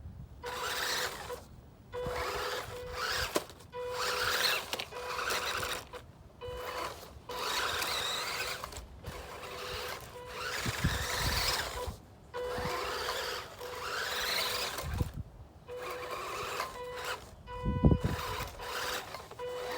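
WPL D64-1 RC truck's small electric motor and gearbox revving in repeated short throttle bursts, each a second or two long and some rising in pitch. A steady high whine comes and goes between them, with a few low knocks.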